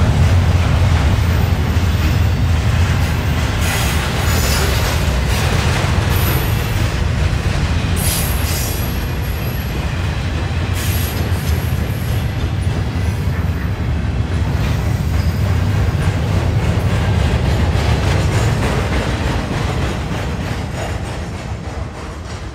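Intermodal freight train's cars rolling slowly past, the wheels rumbling on the rails with thin high wheel squeals that come and go. The sound fades over the last few seconds.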